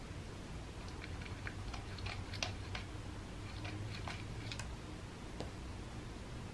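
A cat crunching dry kibble: a run of about a dozen short, crisp cracks from about a second in until nearly five seconds, with one last crack a little later.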